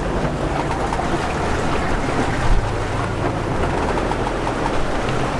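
Steady rush of wind and water past a sailing yacht moving under sail at about 6 knots, with wind buffeting the microphone as a low rumble.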